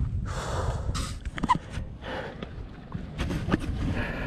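Wind rumbling on an outdoor action-camera microphone. Breathy puffs from the resting mountain biker and a few small clicks and knocks sound over it.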